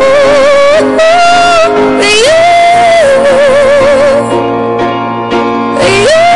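A song with a high voice singing long, wavering held notes over instrumental backing. The voice glides up to a higher note about two seconds in and again near the end.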